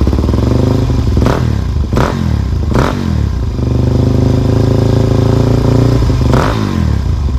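Motorcycle engine running hard through the gears, its steady note broken sharply three times in the first three seconds and again near the end.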